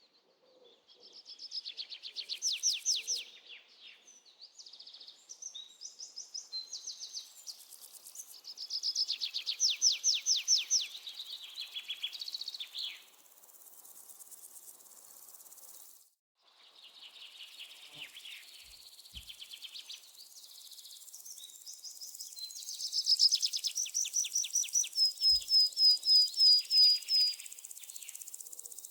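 Songbird song in rapid trills: bursts of quickly repeated high notes a second or two long, over and over, with a clear run of about eight separate notes near the end. A faint, steady high insect hum lies underneath in the second half.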